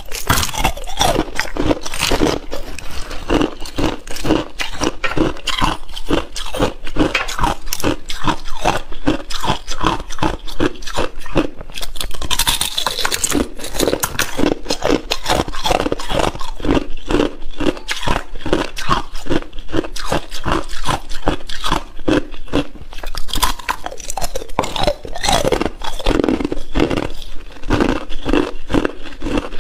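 Thin, clear ice being bitten and chewed, picked up close by a clip-on microphone: a dense, fast run of crunches and cracks.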